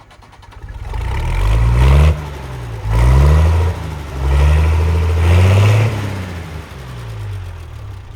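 A vehicle engine revving up, loud, its pitch climbing and dropping back about three times, like shifting up through gears, then fading away.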